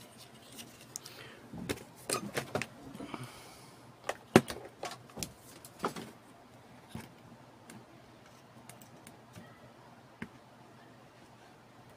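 Scattered short clicks and taps of a soldering iron and a circuit board being handled on a wooden table while component leads are soldered, the sharpest tap about four seconds in.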